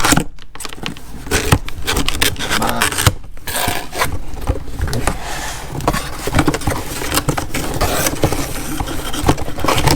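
Cardboard box and packaging being handled as a power tool is pulled out of its box: irregular scraping, rustling and light knocks.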